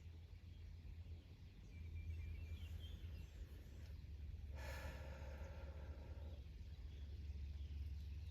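Quiet pause with a steady low hum. A faint pitched sound comes in about four and a half seconds in and lasts under two seconds, and a few faint short chirps come earlier.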